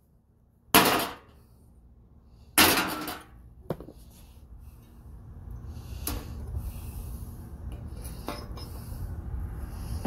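Cutting a square section out of the truck's sheet-steel cowl panel: two sharp metallic bangs about two seconds apart, each ringing briefly, then a quieter steady mechanical noise with a low hum and faint clicks that grows louder over the last several seconds.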